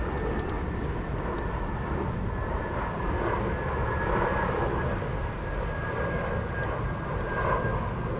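Steady outdoor rumble of wind and engine noise on open water, with a thin steady whine that fades out near the end.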